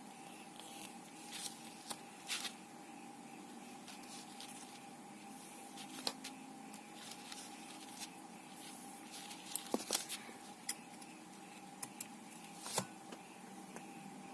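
Handwork on a lace mask connector: scattered soft rustles and small clicks as lace, thread and small tools are handled, over a steady faint hum.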